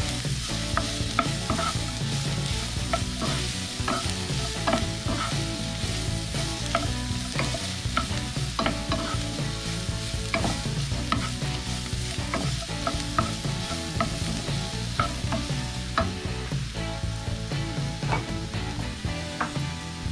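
Diced potato, sweet potato and freshly added garlic frying in oil in a skillet with a steady sizzle. A wooden spatula stirs them, scraping and clacking against the pan many times.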